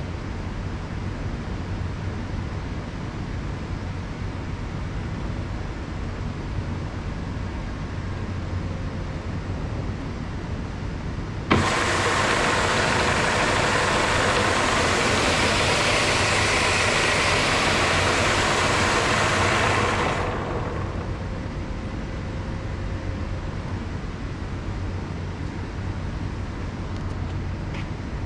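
Walk-behind floor scrubber with a steady low hum, then a loud rushing noise of the Tennant 5700's vacuum motor that cuts in sharply about a third of the way in, runs evenly for about nine seconds, and shuts off.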